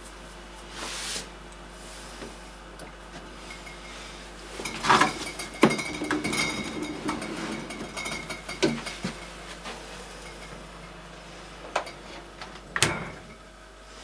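Clunks and knocks as a fermenter of freshly brewed beer is set into a brew fridge and handled in place, with a few sharper knocks about five seconds in and near the end.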